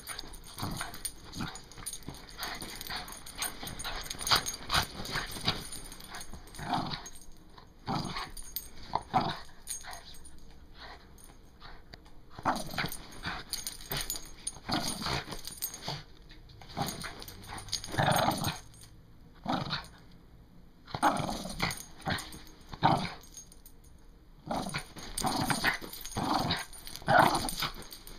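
A Boston terrier playing tug-of-war with a rope toy, making short, irregular dog sounds in bursts of varying loudness, with a few brief pauses.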